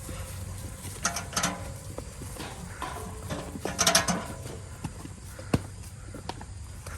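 Livestock sale-ring sounds as cattle are moved through. There are two short pitched calls, about one and four seconds in, and a single sharp knock like a gate or panel banging about five and a half seconds in.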